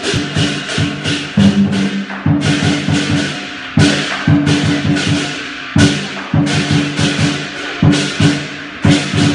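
Chinese lion dance percussion: a drum beaten several times a second under clashing cymbals, with sharp crashes on the accents.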